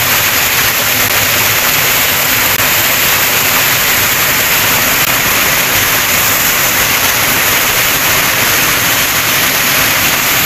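Small waterfall pouring into a rock pool: a steady, loud rush of falling water.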